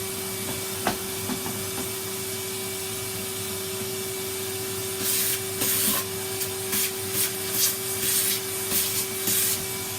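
Henry canister vacuum cleaner running with a steady motor hum. From about halfway, its suction hiss surges in short irregular bursts as the nozzle is worked over surfaces.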